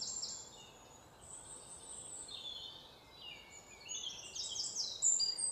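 Small birds chirping: quick series of short, high-pitched notes, faint through the middle and growing denser and louder in the last two seconds.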